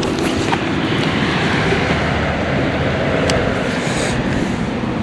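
Wind buffeting the microphone on an open boat, a steady rumble, with one short click about three seconds in.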